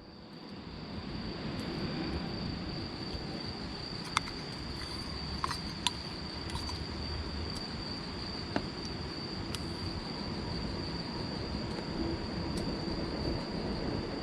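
Insects singing one steady high trill over a low, even background noise, with a few sharp snaps from the campfire scattered through.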